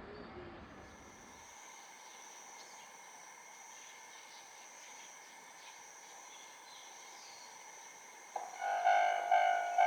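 A Japanese railroad crossing's electronic warning bell starts about eight seconds in, ringing a clear pitched ding about twice a second. Before it, there is only faint outdoor ambience with a steady high insect trill.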